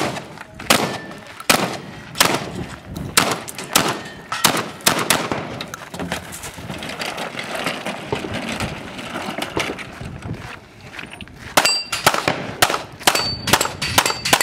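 Shotgun and pistol fire in a timed 3-gun stage: a rapid string of shots, a lull of a few seconds in the middle, then another quick string near the end. The later hits are followed by the ring of struck metal targets.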